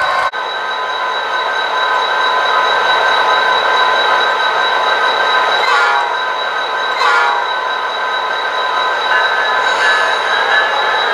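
Running sound of the HO-scale Canadian Pacific SD70ACU diesel locomotives: a steady train sound with high, even tones throughout. Two short, sharper sounds come about six and seven seconds in.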